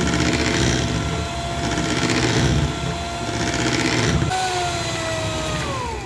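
Electric hand mixer whipping thick lentil batter: a steady motor whine, with the batter swishing and churning every second or two. About four seconds in, the mixer is switched off and its whine falls in pitch as the motor winds down.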